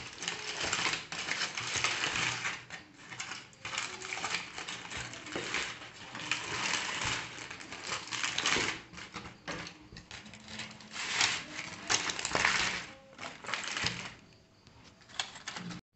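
Aluminium foil crinkling and rustling in irregular bursts as hands tear open and peel back a foil-and-banana-leaf parcel. It gets quieter near the end.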